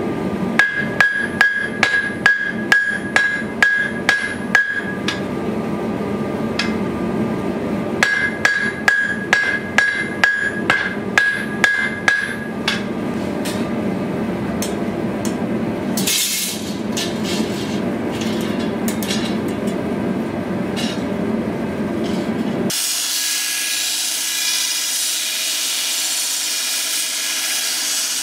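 Hand hammer striking a red-hot sword blade on an anvil in two runs of about two blows a second, the anvil ringing with a steady high tone under the blows, over a steady rushing noise. Near the end this gives way to a belt grinder grinding the blade, a steady high hiss.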